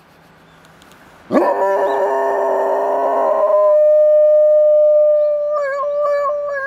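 Golden retriever howling: after a quiet first second, a long, loud howl starts with a full, many-layered sound, then settles into one steady held note that wavers near the end.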